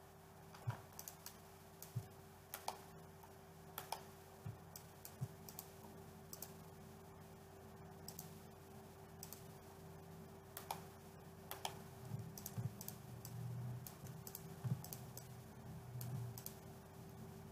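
Scattered, irregular clicks of a computer mouse and keyboard over a faint steady hum.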